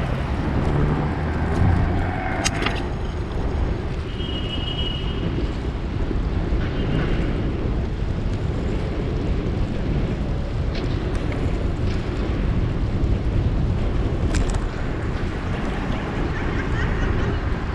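Wind buffeting the microphone of a camera on a moving bicycle, a steady low rumble of wind and road noise. A few sharp knocks come through, and a brief high-pitched tone sounds about four seconds in.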